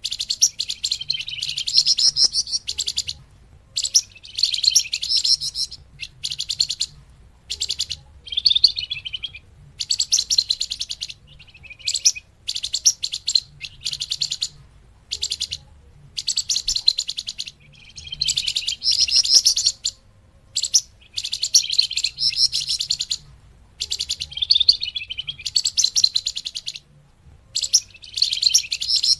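A flamboyan bird singing: repeated bursts of rapid, buzzy, high chattering trills, each phrase up to about two seconds long with short pauses between, as used in a bird-trapping lure recording.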